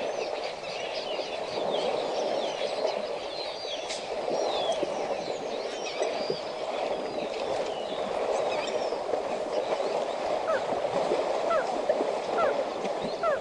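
Water sloshing and splashing as African bush elephants roll and wallow in a muddy waterhole. Many short, high chirps run over it, more of them near the end.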